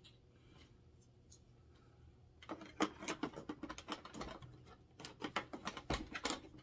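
Hard plastic parts of a large Hasbro Haslab Razor Crest toy ship clicking, tapping and rattling as a part is worked into a hole in the hull. The handling starts about two and a half seconds in, after a short quiet spell, and goes on as a rapid run of small clicks with a few sharper snaps.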